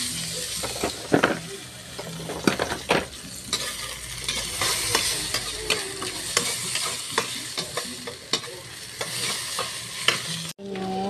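Garlic, onion and tomato sizzling in hot cooking oil in a wok, with a metal spoon clicking and scraping against the pan at irregular moments as they are stirred. The sound cuts off suddenly near the end.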